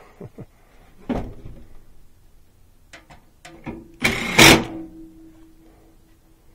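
Clicks and knocks from work on the air handler's sheet-metal cabinet and blower housing. About four seconds in comes a loud metal clank that rings on for a second or two.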